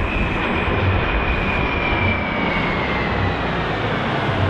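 Formation of two EA-18G Growler jets and an FG-1D Corsair flying past: a steady rushing jet roar, with a high whine that slowly falls in pitch over the first few seconds.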